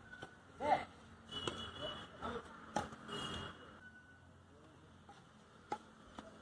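Badminton rackets striking a shuttlecock in a rally: several sharp, irregularly spaced hits, the loudest about a second in, near three seconds and near the end.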